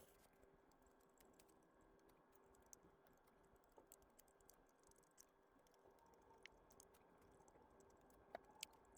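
Near silence with faint, scattered small clicks and taps of tools and small parts being handled during a phone teardown, over a faint steady hum.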